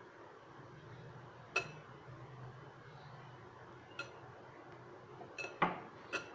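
Glass mixing bowl clinking as gram flour dough is rubbed and kneaded by hand in it: five short ringing knocks, three of them close together near the end.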